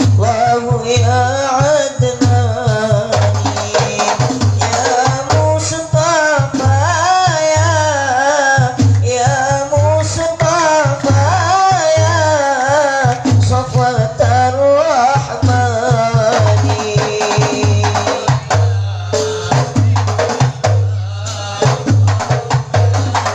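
Hadroh ensemble of frame drums beating a steady, driving rhythm under a voice singing a wavering, ornamented sholawat melody. The singing stops about two-thirds of the way through, leaving the drums and percussion.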